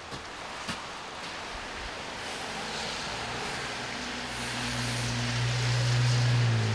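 A vehicle approaching and passing by. Its engine hum and road noise build up and are loudest near the end, and the hum drops a little in pitch as it goes past.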